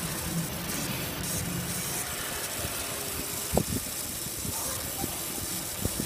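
Laser engraving machine running with a steady mechanical hum while it marks a lighter, with two short sharp clicks, one a little past halfway and one near the end.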